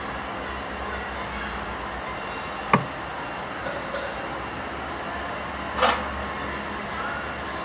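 Kubota D905 three-cylinder diesel running steadily, with a sharp metallic click a little under three seconds in and a brief knock near six seconds.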